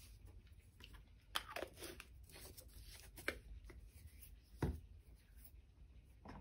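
Plastic acrylic paint bottles being handled, picked up and set down on a cutting mat: light rattles and taps with three sharper knocks spread through.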